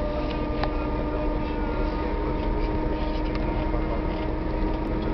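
Mercedes minibus driving steadily on the road, heard from inside the cabin: a constant engine drone and road noise with a steady whine and a few light rattles.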